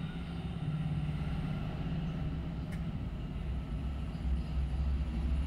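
Steady low engine rumble, with one faint click a little under three seconds in.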